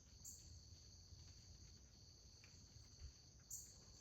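Faint steady chirring of crickets in the background, with two brief high chirps, one near the start and one near the end.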